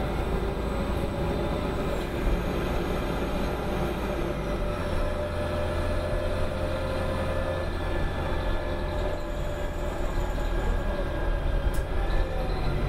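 1995 New Flyer D40LF transit bus running under way, a steady low diesel rumble with a held drivetrain whine above it. The low rumble grows heavier about five seconds in.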